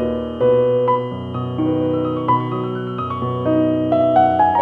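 Background piano music: a melody of held notes over steady chords.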